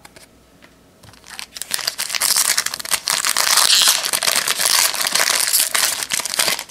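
Foil wrapper of a 2002 Fleer Tradition baseball card pack crinkling loudly as it is torn open by hand, starting about a second in and stopping just before the end.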